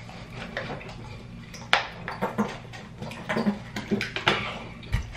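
Light clicks and crinkles of a plastic water bottle being handled and drunk from, with one sharper click about two seconds in and a dull thump near the end.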